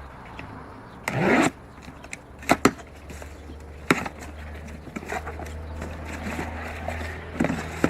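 Knocks and a scrape from equipment being handled, over a steady low engine hum. The loudest is a scrape about a second in, then a pair of sharp knocks and a single knock a little later, with more light knocks near the end.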